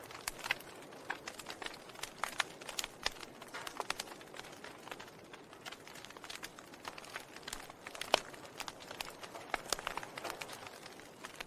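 Wood fire in a fireplace crackling: irregular sharp pops and snaps over a soft hiss, several a second, the loudest pop about eight seconds in.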